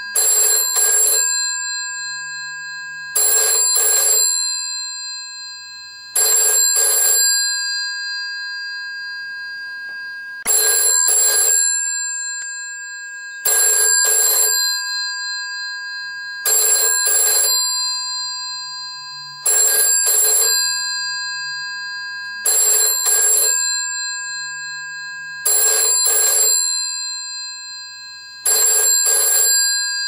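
Bell of a vintage 1970s UK 746 rotary-dial telephone ringing in the British double-ring pattern: two quick rings, then a pause of about two seconds, repeating over and over. The bell's tone lingers between rings.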